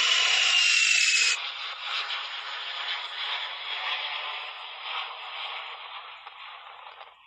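Jet airliner engine noise: a loud rush with a high whine sinking slightly in pitch, which cuts off abruptly about a second in. A quieter rushing engine noise follows and fades away.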